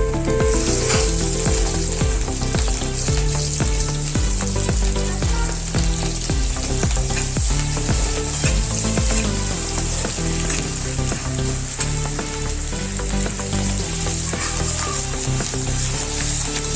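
Food sizzling in hot oil in a pan while it is stirred, with frequent spatula clicks against the pan, over background music with a stepping bass line.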